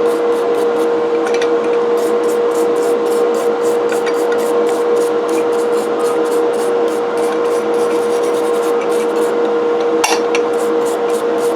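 Brush scrubbing grease off cast iron coffee grinder parts in quick, regular scraping strokes, about five a second, over a steady hum.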